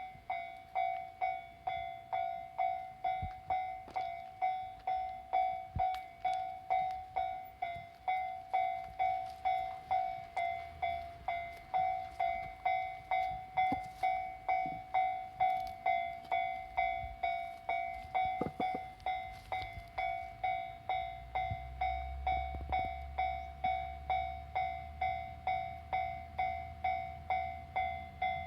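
Japanese level-crossing warning bell ringing steadily, about two ringing strikes a second: the crossing is closed for an approaching train. About three-quarters of the way in, a low steady rumble joins underneath as the train draws near.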